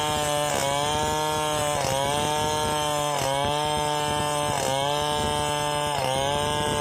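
Petrol chainsaw running at high revs, ripping lengthwise through a log to cut boards; its pitch sags briefly and recovers about every second and a half as the chain bites into the wood.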